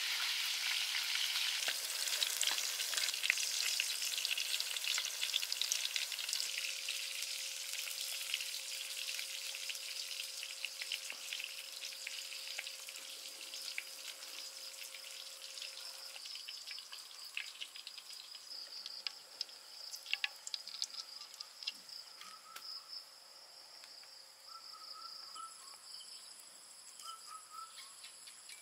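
Betel-leaf-wrapped minced pork rolls frying in oil in a wok: a dense sizzle with clicks of chopsticks turning the rolls. The sizzle fades gradually over the second half.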